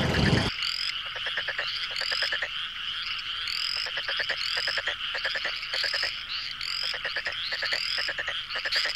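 Frogs calling in a chorus: rapid trains of croaking pulses repeating about once a second, with higher rising chirps over them. A low engine noise cuts off abruptly about half a second in.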